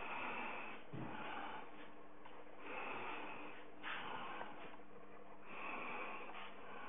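A person breathing in and out, in noisy swells about every second and a half, over a faint steady hum.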